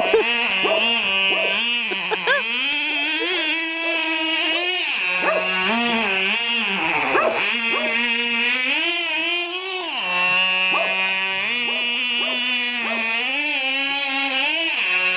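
Radio-controlled model car's motor running continuously, its pitch rising as it speeds up and falling back to a steady lower tone several times as the throttle is worked.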